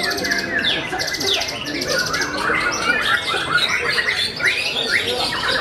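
White-rumped shama singing loud, fast, varied phrases of whistles, glides and trills, densely overlapped with other birds' song.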